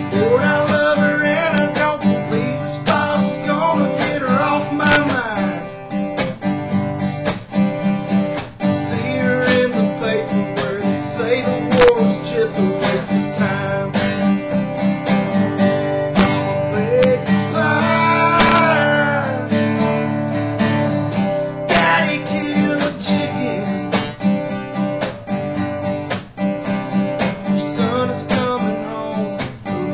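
Acoustic guitar playing an instrumental break in a country song, strummed chords with picked melody notes, some of them sliding in pitch.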